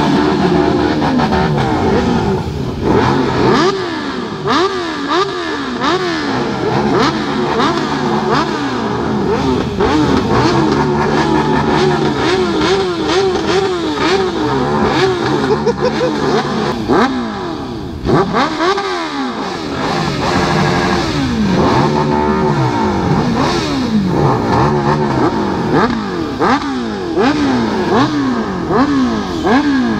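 Several sport motorcycles revving their engines at a standstill, with quick throttle blips rising and falling over and over, often two or more engines at once.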